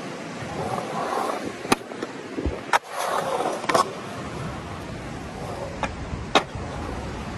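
Skateboard wheels rolling on a concrete bowl, the rolling noise swelling and fading as the rider carves. Several sharp clacks from the board are heard, the loudest about six seconds in.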